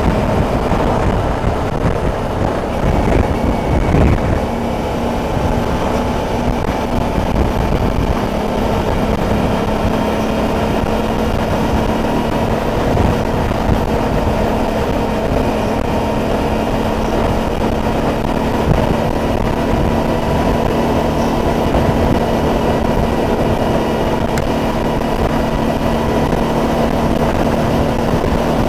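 Suzuki DL650 V-Strom's V-twin engine running at a steady cruise, heard from the bike with wind rush. There is a brief louder swell about four seconds in, as an oncoming car passes, and the engine note holds steady after it.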